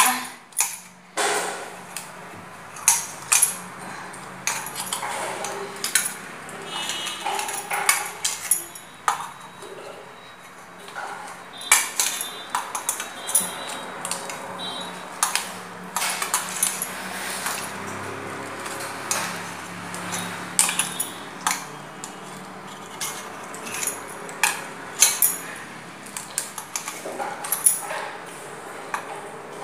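Irregular clinks and knocks of hands, a ring and glass bangles against a stainless steel bowl while boiled papaya and potatoes are mashed by hand.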